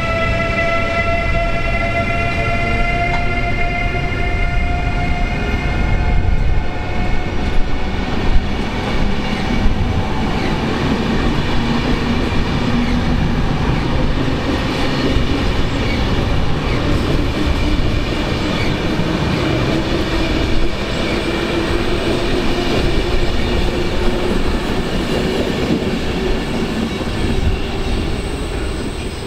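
A train passing close by with a steady rumble of wheels on rails and a few sharp clacks about six to eight seconds in. Over it, a whine of several tones rises slowly in pitch at the start, and a second, lower whine rises through the second half.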